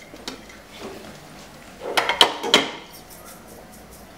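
Kitchenware clattering: a quick run of sharp clinks and knocks about two seconds in, with a few lighter clicks around them.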